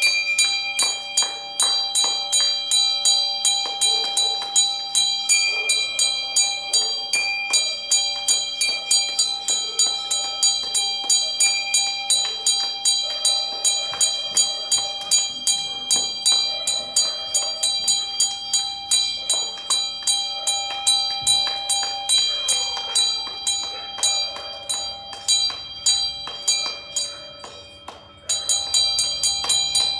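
A metal bell struck rapidly and evenly, about three strikes a second, its ringing tones carrying on between the strikes. Near the end the strikes weaken briefly, then pick up again at full strength.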